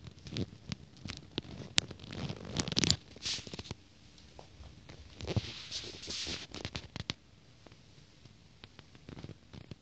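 Handling noise from a hand-held camera: irregular scratching, rubbing and sharp clicks as it is picked up and moved close around a sneaker. The noise comes in spells, busiest in the first few seconds and again around the middle, then dies down for a couple of seconds before picking up near the end.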